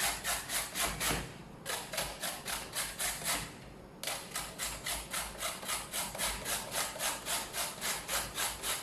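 A carrot being grated: rhythmic rasping strokes, about four or five a second, in three runs with two short pauses.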